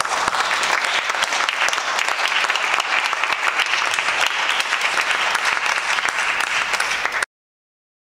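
Audience applauding, many hands clapping steadily, then cut off suddenly about seven seconds in.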